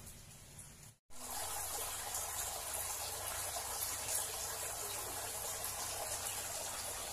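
Steady sound of running water trickling and splashing, starting suddenly about a second in.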